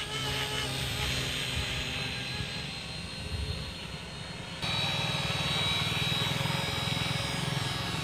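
Small RC helicopter in flight, its coreless electric motors and rotor blades making a steady buzz. The buzz gets suddenly louder just past halfway.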